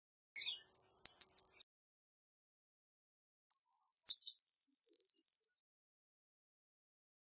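Eurasian blue tit singing two short, high-pitched phrases a few seconds apart. Each opens with thin high notes. The first drops to a few quick lower notes, and the second ends in a rapid trill that falls slightly in pitch.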